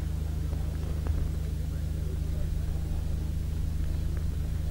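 A steady low hum runs throughout, with faint voices murmuring in the background.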